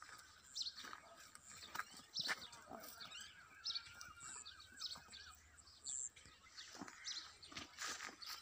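Quiet open-air background with birds chirping and twittering now and then, and a few brief soft knocks and rustles.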